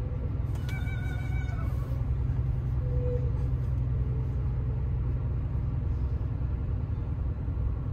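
Car cabin: steady low road and tyre rumble from driving slowly along a country road. About a second in, a short high tone is heard.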